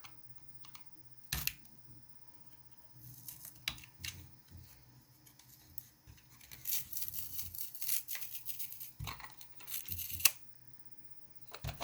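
A piece on the bottom of a fake JBL Bluetooth speaker being peeled up and pried at by hand: scattered clicks and stretches of scratchy scraping, with a sharp click about ten seconds in.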